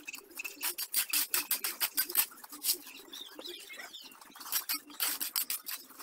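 Shovel working wet concrete on a slab: quick runs of short wet splats and scrapes. Birds chirp briefly in the middle.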